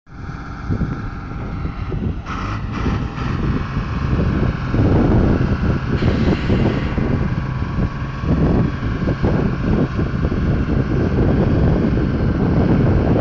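Heavy truck diesel engines running, with a faint steady whine above them. Wind buffets the microphone in gusts throughout.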